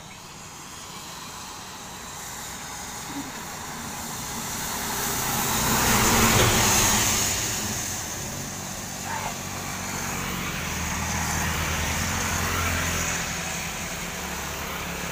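Road traffic: a vehicle passes close by, loudest about six seconds in, and is followed by a low, steady engine drone.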